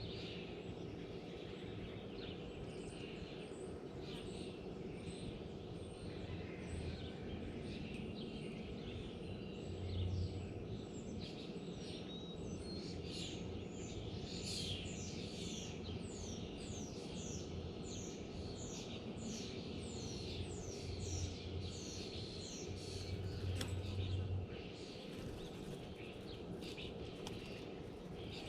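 Wild birds chirping and calling, with many short falling chirps coming thick and fast through the middle, over a steady low background rumble.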